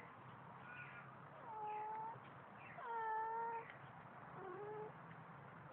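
Domestic cat singing: a run of four drawn-out meows, the longest and loudest about three seconds in.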